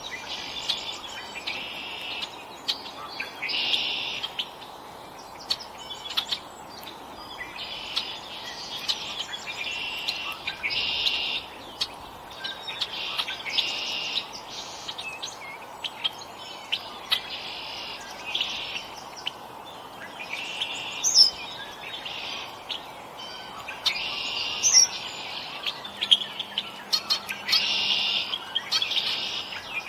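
Songbirds at a feeder chirping in short phrases that come every second or two, with scattered sharp clicks.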